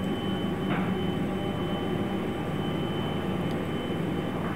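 Steady low machinery drone with a thin, steady high whine over it.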